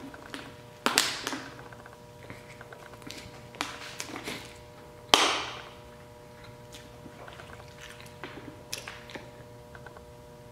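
Close-up sounds of a man speed-eating: chewing and gulping, with a plastic water bottle being handled. A few sharp, sudden noises stand out, the loudest about five seconds in, over a faint steady hum.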